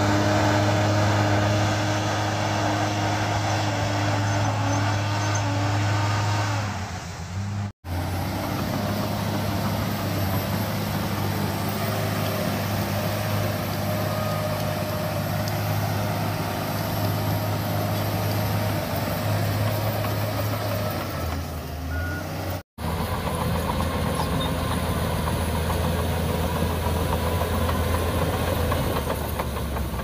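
Crawler bulldozer's diesel engine running steadily as the dozer pushes soil and rock with its blade. The sound breaks off sharply twice, about 8 and 23 seconds in, where one clip cuts to the next.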